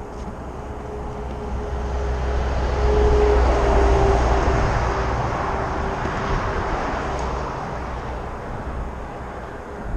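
A vehicle passing by: its noise swells to a peak about three to four seconds in and then fades, with a low rumble and a steady hum that drops slightly in pitch as it goes past.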